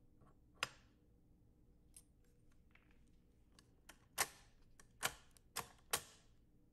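Chrome control lever being pushed onto its metal shaft on a 1968 Sony TC-560D reel-to-reel deck, giving sharp clicks: one a little over half a second in, then four loud clicks in quick succession over the last few seconds.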